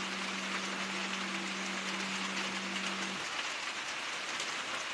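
Steady background hiss with a low hum under it; the hum cuts out about three seconds in and comes back near the end.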